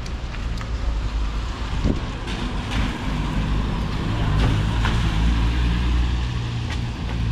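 A small van driving along a wet street: low engine rumble with the hiss of tyres on the wet road, growing louder in the second half as it comes close.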